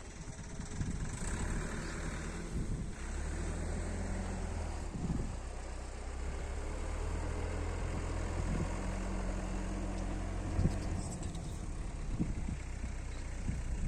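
An engine running steadily, a low, even hum, with a few brief knocks over it.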